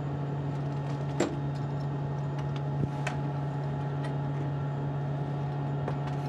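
Steady hum and whir of the International Space Station's cabin fans and equipment, with a constant low drone under an even hiss and a couple of light clicks.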